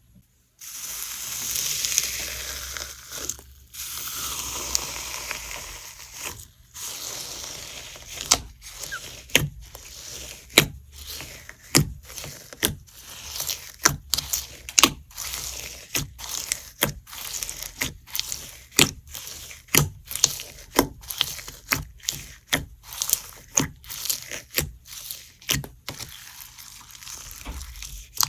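Perlite slime being squeezed and pressed by hand, its embedded perlite granules crunching and crackling. A continuous crackle fills the first several seconds, then it turns into a steady run of sharp crunchy pops about twice a second.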